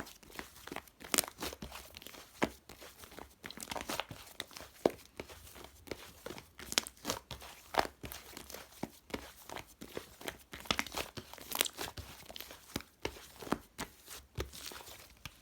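Hands squishing, pressing and stretching slime, giving a dense run of irregular sharp pops and crackles that stops at the very end.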